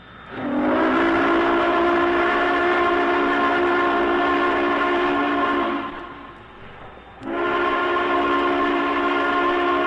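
Union Pacific 4-8-8-4 Big Boy No. 4011's steam whistle sounding a departure signal: a chord of several tones that bends up slightly as it opens about half a second in and holds for about five seconds. After a short gap a second long blast starts abruptly and carries on.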